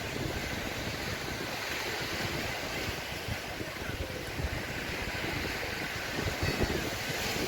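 Sea waves washing onto a beach in a steady wash, with wind buffeting the microphone in uneven low rumbles.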